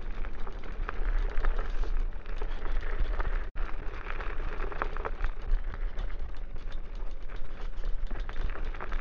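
Trittbrett Sultan Plus electric scooter riding over a rough, loose offroad trail: a steady low rumble with a constant rattle and clatter of small knocks as the hard-pumped road tyres and unsprung rear end jolt over the bumps. The sound cuts out for an instant a little after three seconds.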